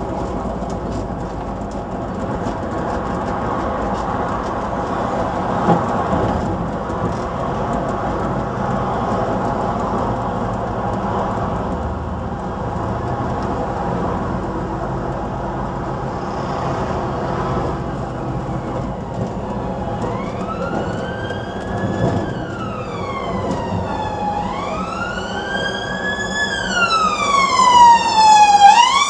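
A preserved London Transport RT double-decker bus's diesel engine running steadily on the move. About twenty seconds in, an ambulance siren starts wailing in slow rising and falling sweeps, getting louder towards the end as it approaches.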